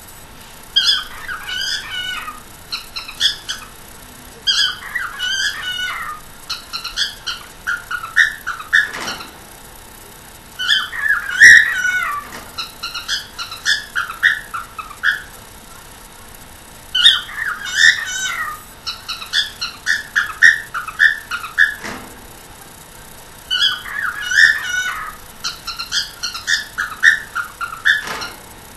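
One-year-old cockatiel chattering in phrases of quick chirps, squeaks and warbles, with short pauses between phrases.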